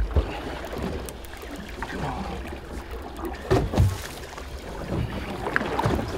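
Steady low rumble of wind and sea around a boat drifting offshore, with a few irregular dull knocks, the loudest about three and a half seconds in.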